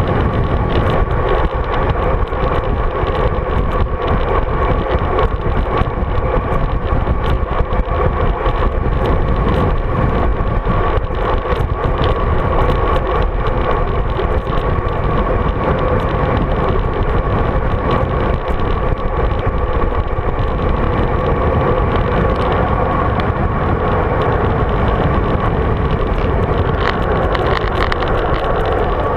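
Wind rush and road noise on a road-bike-mounted GoPro Hero 3 while riding, steady throughout, with frequent small knocks from the bike going over the road surface and a steady hum in the noise.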